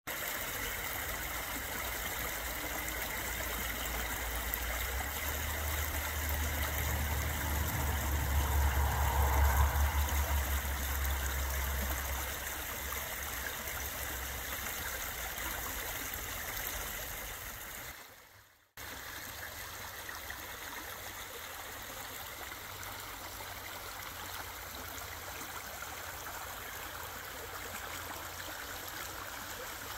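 Small forest creek flowing over stones and branches, a steady rushing babble. A low rumble swells in from about five seconds in and fades by about twelve, and the sound cuts out for a moment about two thirds of the way through.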